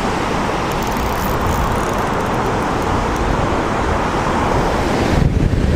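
Steady rushing of water pouring out of a dam's outflow gates and churning in the tailwater below. About five seconds in, wind buffets the microphone in uneven low gusts.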